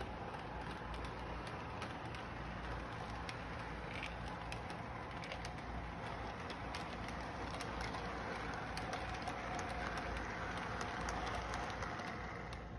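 Electric model train running on its track: a steady motor hum and rolling rumble with many light clicks from the wheels on the rails. It grows a little louder near the end.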